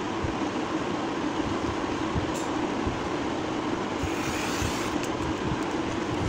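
Steady whirring hum, with a soft scraping hiss about four seconds in as the blade of a sliding paper trimmer cuts across a sheet of notebook paper.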